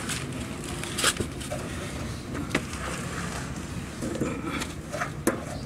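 Three sharp clicks and knocks from hand work at the fuel pump's wiring connector and hoses under a car, over a steady low hum.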